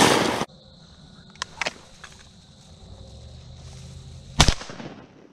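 A single shotgun shot about four and a half seconds in, a sharp crack with a short echoing tail. Before it, a loud rushing noise cuts off abruptly about half a second in, and there are two faint clicks.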